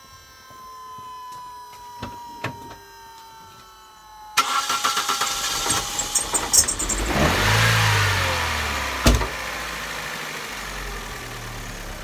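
Vauxhall Astra Mk4 four-cylinder petrol engine being restarted: it cranks and catches about four seconds in, revs up briefly and settles into idle, with a sharp click shortly after. The engine runs with a misfire, which the mechanic puts down to cylinder four not firing because of a faulty coil.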